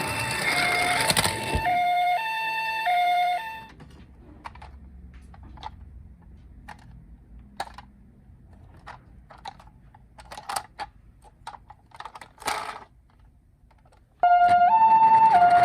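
A toy ambulance minicar's electronic two-tone siren plays its alternating high-low call, then stops a few seconds in. Scattered light plastic clicks and taps follow. Near the end another two-tone toy siren starts abruptly and loudly.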